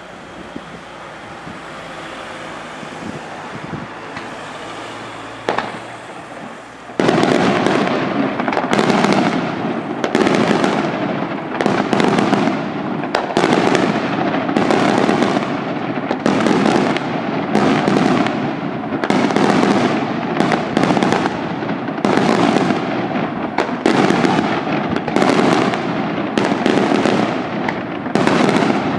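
Daytime aerial fireworks: about seven seconds in, a rapid barrage starts, a dozen or so volleys of loud bangs and crackling about one to one and a half seconds apart, going on to the end. Before it comes a quieter, rising rush of noise with a single sharp crack.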